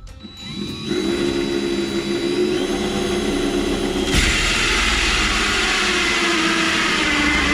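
Handheld power tool spinning up and running steadily, then biting into the boat's fiberglass hull about four seconds in, the sound turning suddenly harsher and hissier as it cuts the opening for the throttle.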